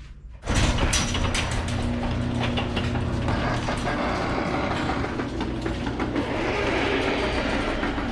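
Garage door rolling open: a steady mechanical hum with rattling and clicking, starting suddenly about half a second in.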